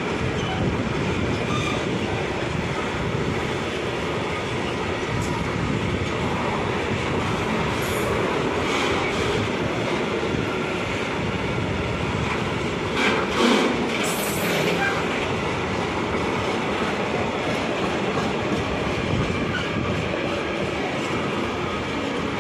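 Freight train of intermodal container flat wagons rolling past close by: a steady rumble and clatter of steel wheels on the rails. There is a brief louder burst of metallic noise about halfway through.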